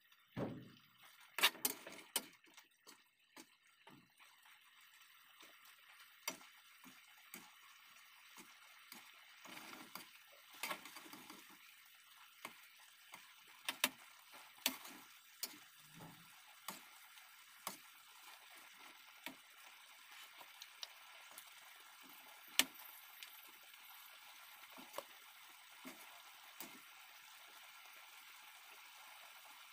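A metal spatula tapping and scraping against an aluminium wok while chicken adobo is stirred in its sauce, in scattered sharp clicks that come thick at first, then about one a second, and thin out near the end, over a faint steady hiss.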